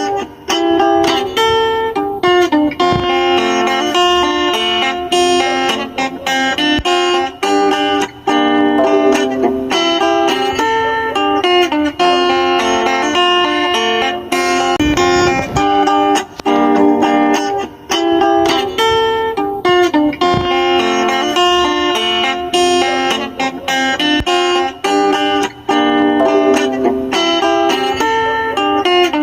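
Background music: guitar, plucked and strummed, with a steady run of quick notes.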